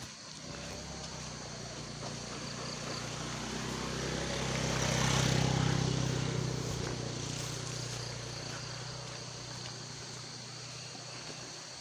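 A motor vehicle engine passing by, growing louder to a peak about halfway through and then fading away, over steady high insect buzzing.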